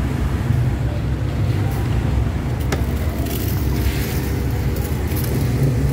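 Battery-powered electric pump of a Bamboo B 2-in-1 knapsack sprayer running with a steady low hum, spraying water, with a spray hiss rising from about halfway through and a single click a little before that.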